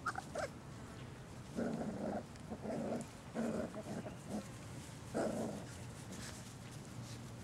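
Australian Labradoodle puppies vocalizing as they play-fight: a brief high yip at the very start, then about five short growls over the next few seconds.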